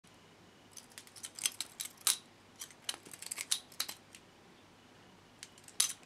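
Butterfly-knife-style bottle opener being flipped, its swinging handles clacking against each other in quick irregular clicks: a dense run for the first few seconds, a pause, then a few more clicks near the end.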